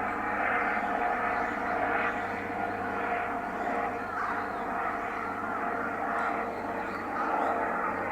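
Steady drone of distant engine noise, with no clear bird call standing out.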